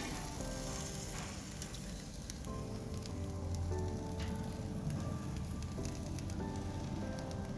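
Chicken kebabs sizzling and crackling as they fry, a steady hiss with fine pops throughout, under background music.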